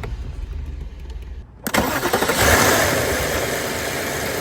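Volkswagen Phaeton's 4.2-litre V8 being started: after a short crank, the engine catches suddenly a little under two seconds in, flares up briefly and then settles into a steady idle.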